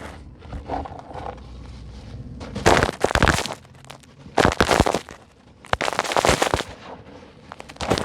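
Dry sand-and-concrete lumps crumbling by hand, with gritty crunching and crackling. Three louder bursts of crunching, each about a second long, come after a quieter start with scattered small crackles.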